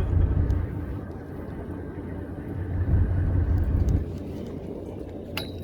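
Low steady rumble aboard a fishing boat, engine and wind noise swelling and easing, with one sharp click near the end.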